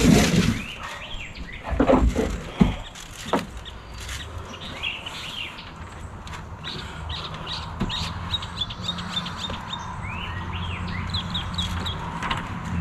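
A few loud knocks and thumps as a person shifts about at the edge of a roof and onto a ladder, then birds chirping in quick short series over a low steady hum.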